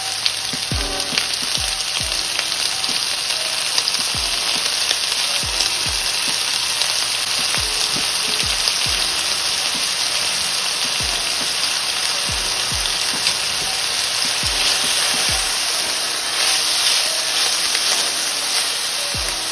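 Chopped bell peppers and green onions sizzling steadily in hot olive oil in a pan, frying as the sauce base.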